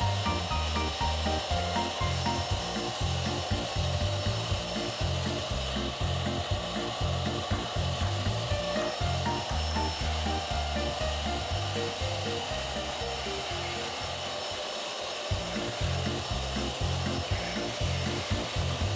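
Background music with a steady beat, a stepping bass line and a melody; the bass drops out for a moment late on.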